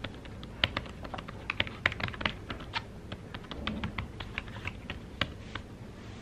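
Typing on a tablet's thin keyboard cover: quick, irregular key clicks, densest in the first few seconds and thinning out towards the end.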